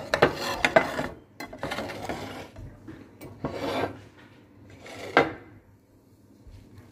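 Handling noise: four bursts of rustling and scraping as a plate with cilantro garnish is moved and the leaves are handled, the first and loudest in the first second and a short sharp one about five seconds in.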